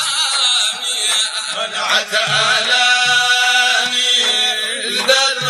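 Male voices chanting a Sudanese Sufi madeeh, a praise song for the Prophet, with a few low drum beats underneath.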